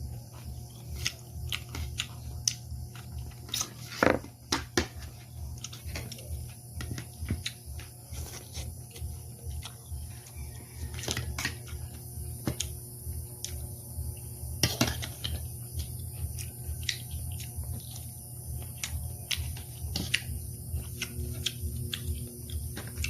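Eating at a table: utensils repeatedly clicking and scraping against a plate, with chewing, over a steady low hum.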